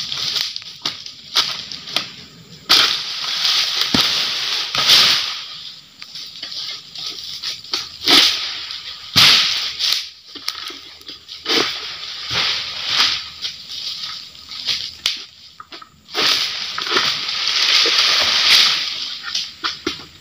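Oil palm fronds rustling and scraping in repeated rushes, with a few sharp cracks, as an egrek pole sickle works in the palm crown.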